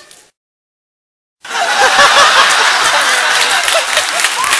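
Total silence for about a second, then a theatre audience breaks into loud laughter and clapping that continues to the end.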